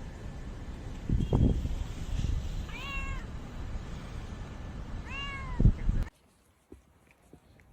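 Domestic cat meowing twice, each meow rising then falling in pitch, about two seconds apart. There is a low thump shortly before the first meow and a louder thump just after the second, and the sound cuts off suddenly soon after.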